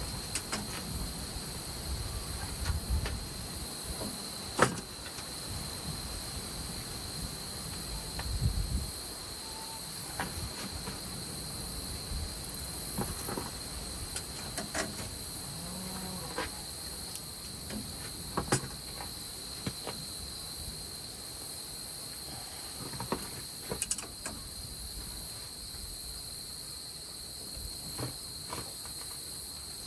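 Insects chirring in a steady high-pitched drone, with occasional sharp knocks and clanks, the loudest about four and a half seconds in.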